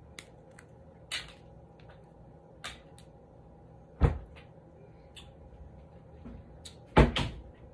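Crab shells cracking and clicking as crab legs are broken apart and eaten: a scatter of short, sharp cracks, with two louder knocks about four and seven seconds in.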